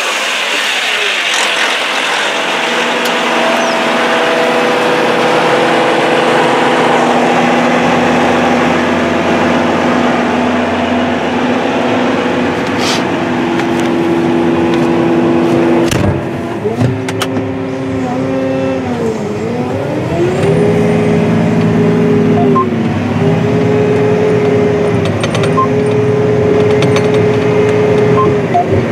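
John Deere 9620RX track tractor's 15-litre Cummins QSX15 diesel engine running steadily. About eighteen seconds in its pitch dips and climbs back.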